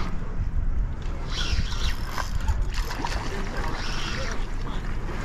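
Wind rumbling on a small action-camera microphone, with water sloshing and splashing against shoreline rocks in short hissy patches about a second and a half in and again near four seconds.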